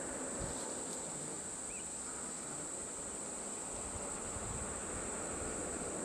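Insects droning steadily at one high pitch, with a faint low rumble underneath.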